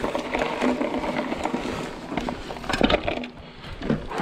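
Trek Fuel EX 5 mountain bike riding over concrete and gravel: tyre rolling noise with a run of rattles and knocks from the bike, busiest about three seconds in.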